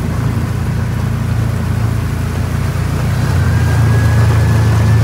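A vehicle's engine running with a steady low hum as it drives slowly along a gravel driveway, over a steady hiss. A faint high whine joins about three seconds in.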